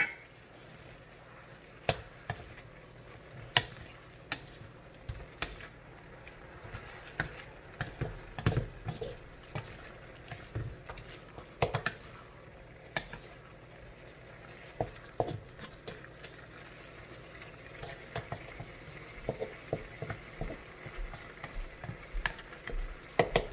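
Utensil stirring pork rib adobo in a pot, with irregular knocks and scrapes against the pot over the faint sizzle of the simmering sauce.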